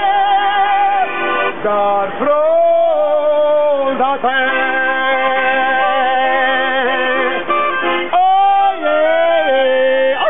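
Accordion playing with a voice singing long held notes that waver and slide between pitches.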